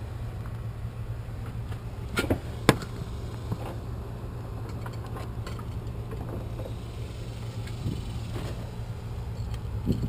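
Scattered sharp clicks and taps from handling an outlet and its wiring, the two loudest close together a little over two seconds in, over a steady low rumble.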